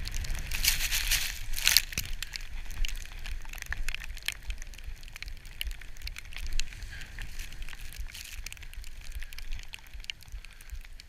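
Skis running through powder snow: a steady hiss with many small crackles, with low wind rumble on the camera's microphone.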